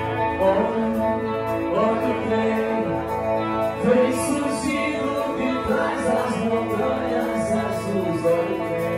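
A live rock band plays with an electric guitar, and a man sings into a handheld microphone.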